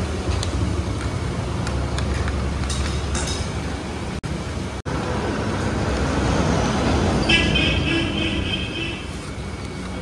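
Steady low rumble of road traffic, with a brief high-pitched tone about seven seconds in.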